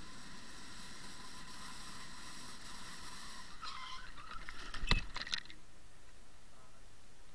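Scooter ride noise on a helmet camera with a thin steady whine that stops about three and a half seconds in, then a sharp knock and brief clatter a little later as the scooter collides with another scooter cutting across its path.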